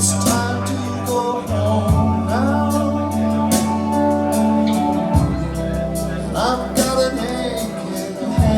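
Recorded music played over hi-fi loudspeakers: held bass notes and sustained chords, with a melody that slides between notes.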